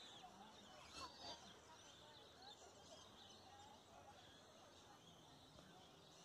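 Faint outdoor ambience: scattered distant bird chirps and far-off voices, with a couple of soft clicks near the start.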